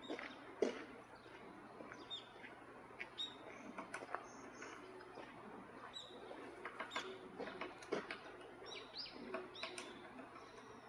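Great spotted woodpecker: irregular sharp taps and short high notes, scattered unevenly rather than in a steady drumming roll.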